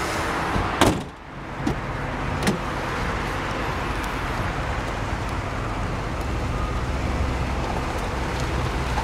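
The hood of a 1994 Cadillac Fleetwood Brougham slams shut about a second in. Its 5.7-litre V8 then idles steadily, with a couple of light clicks.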